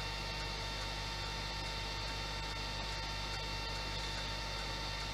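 Steady electrical hum and hiss, with several constant high whining tones above it.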